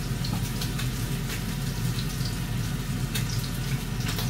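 Food sizzling in a frying pan: a steady hiss with scattered crackling pops, over a steady low hum.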